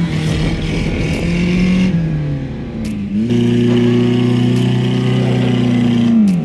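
Renault Mégane engine revving hard while the car is stuck in deep loose sand, with men pushing it from behind. The revs dip and climb again about two to three seconds in, then hold high and steady for about three seconds before dropping near the end.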